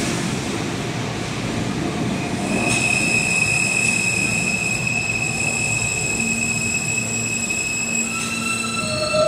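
R160 subway train pulling into an underground station and slowing to a stop, with a continuous rumble of wheels on track. A steady high-pitched whine sets in a couple of seconds in. Near the end it is joined by several lower, stepped tones as the train comes to a halt.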